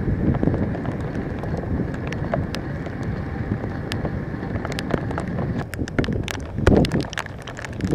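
Wind buffeting the microphone over steady rain, with scattered sharp ticks of raindrops striking. The ticks come thicker in the second half, and a louder low gust hits near the end.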